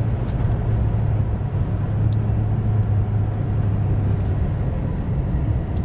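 Steady low drone of a car driving on the road, heard from inside the cabin: engine and tyre noise.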